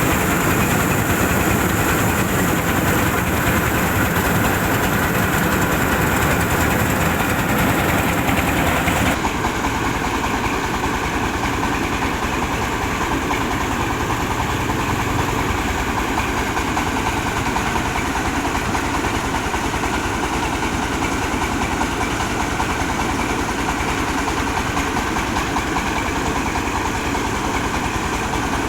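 Diesel engine of a mobile rice huller running steadily. About nine seconds in the sound changes abruptly, turning duller and slightly quieter.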